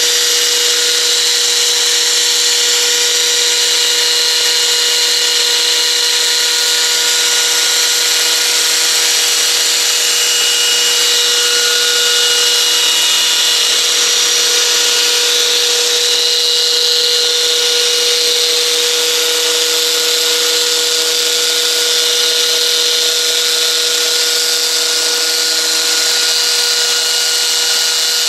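Align T-Rex 500 EFL electric RC helicopter running with its torque-tube tail drive turning: a steady whine with several held tones over a hiss. The owner is unsure whether the noise from the torque tube is normal.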